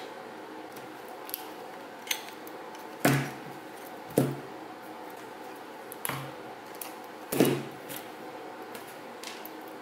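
Hand wire strippers clicking and snapping as they cut and pull the insulation off the ends of lamp cord wires. It makes a handful of short sharp clicks, the loudest about three, four and seven seconds in.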